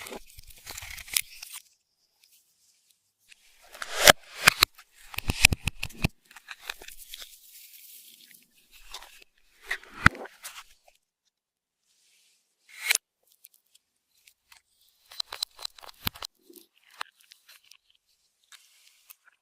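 Slime being worked by hand: bursts of sticky crackling, clicks and pops, with short silent pauses between handfuls.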